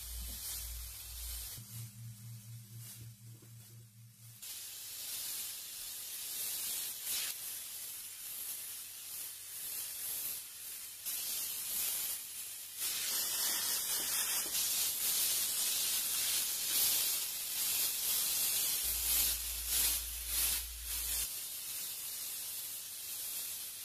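Airbrush spraying paint: a hiss of compressed air that dips briefly about two seconds in and grows louder in the second half.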